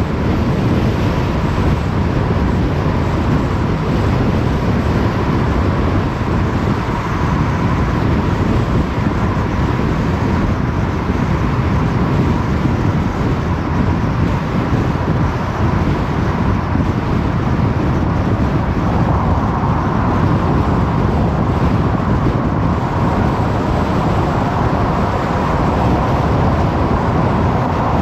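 Car driving along a road: steady tyre, wind and engine noise at a constant speed, with a faint steady whine that grows a little stronger about two-thirds of the way through.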